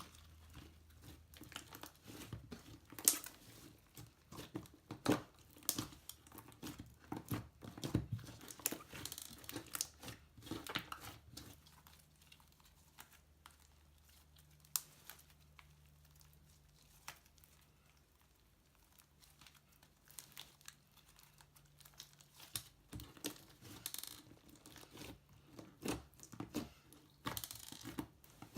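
Slime being squeezed, stretched and poked, giving many small crackling pops. The pops thin out to near quiet for about ten seconds midway, then start again.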